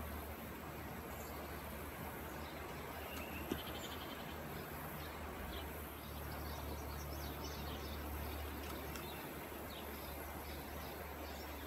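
Outdoor riverside ambience: birds chirping now and then and insects, over a steady low rumble, with one sharp click about three and a half seconds in.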